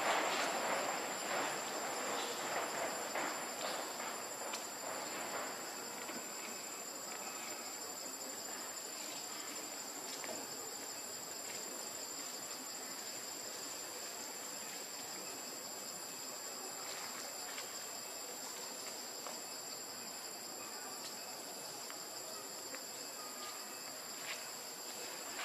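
Steady high-pitched drone of insects, with rustling and crackling over the first few seconds.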